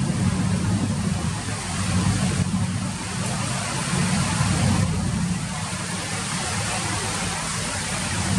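Steady rain falling, an even hiss with a strong low rumble underneath.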